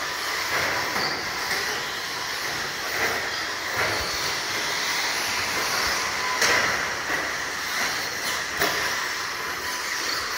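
A pack of electric RC stadium trucks racing: a steady high whine of motors and tyres scrubbing over the dirt, with a few sharp clicks about four, six and a half and eight and a half seconds in.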